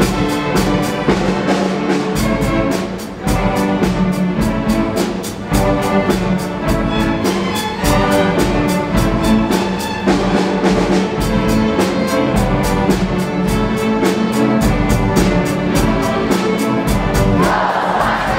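Student string orchestra of violins, cellos and double basses playing a piece with a steady, quick rhythmic pulse.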